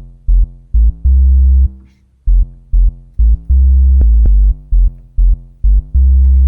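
Fart-sounding synth bass playing a loud riff of short and held low notes on its own, stopping just before the end.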